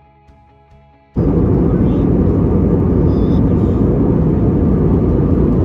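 Faint background music cuts off about a second in, replaced by the loud, steady low rumble of a passenger jet airliner.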